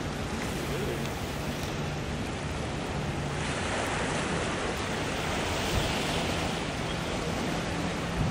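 Sea surf washing against the shoreline rocks, with wind buffeting the microphone: a steady rushing noise that swells a little in the middle.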